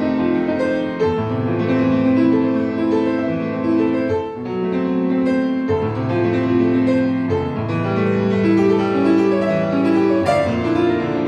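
Grand piano played solo: quick passages of many notes over longer-held lower notes, at a steady loud level.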